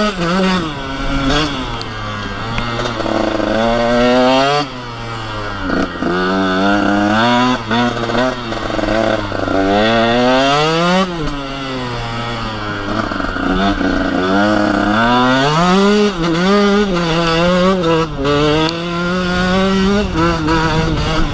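KTM SX 125's two-stroke single-cylinder engine revving hard under way, its pitch climbing and falling back several times as the rider works the throttle, with a sudden drop about four and a half seconds in.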